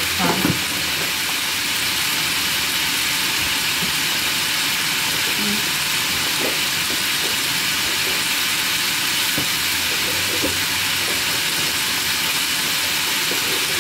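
Sliced calabacita squash and carrots sizzling steadily in a hot frying pan.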